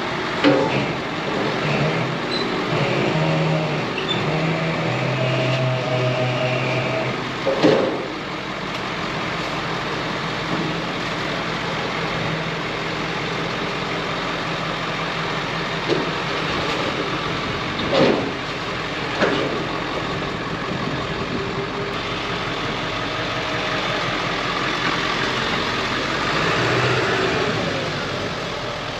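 Pickup truck engine running at low revs as the truck creeps down a trailer's ramps, with a few sharp knocks and clanks along the way.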